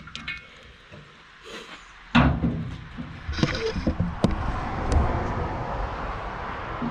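A sudden metal knock about two seconds in, then scraping and several sharp knocks as a bar is worked against the tight knife-mounting bolts on a wood chipper's cutter wheel.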